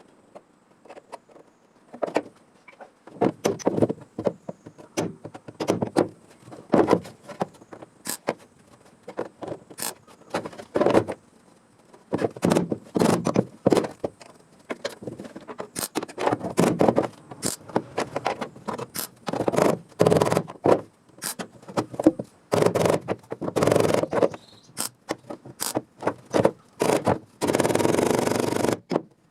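Welding a patch panel into car floor sheet metal in many short tack bursts, each from a fraction of a second to about a second long, irregularly spaced, with one longer continuous run near the end.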